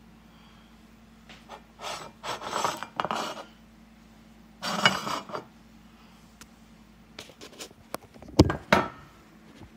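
Kitchen things being handled on a counter: rubbing and scraping sounds a few times, then two sharp knocks close together near the end.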